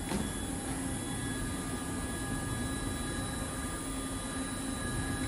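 Steady mechanical hum and hiss of running machinery, with several faint steady whining tones on top and a brief click right at the start.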